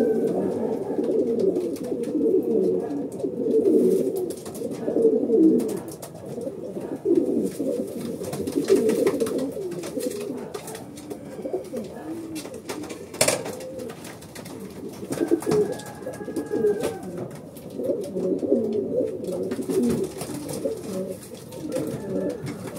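Racing pigeons cooing inside a loft, many overlapping coos throughout, with a single sharp click about thirteen seconds in.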